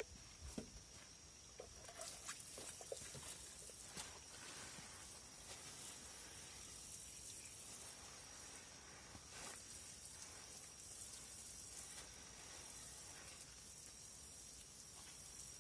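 Faint outdoor ambience: a steady thin high-pitched tone with a soft high hiss, and a few soft clicks and rustles in the first few seconds.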